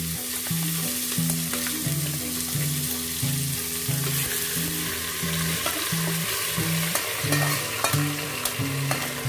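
Marinated mutton sizzling in hot mustard oil in a pressure cooker, with scattered clicks and scrapes of a spatula as it is stirred. A quiet background tune with a repeating low line runs underneath.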